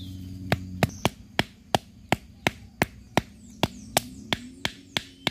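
A forked wooden stake being knocked into the ground: about fifteen sharp wooden knocks at roughly three a second, starting about half a second in.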